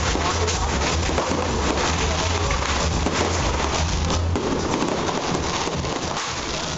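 Fireworks crackling overhead: a dense, continuous crackle of many small pops, with crowd voices. A low hum underneath stops about four seconds in.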